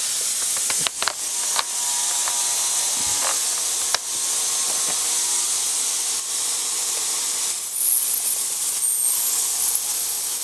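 Industrial ultrasonic cleaner running a cleaning cycle, its tank of degreaser giving off a steady high hiss. A few sharp clicks and knocks sound in the first four seconds.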